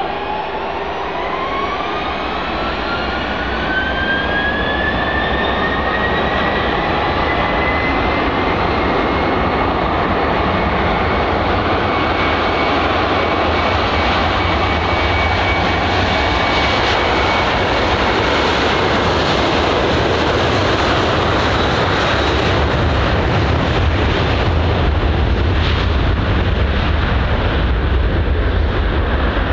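Boeing 737-800 BBJ2's CFM56-7B turbofan engines spooling up to takeoff thrust: a whine rising in pitch over the first several seconds, then the steady rush of the jets at full power, growing louder as the aircraft rolls down the runway on its takeoff run.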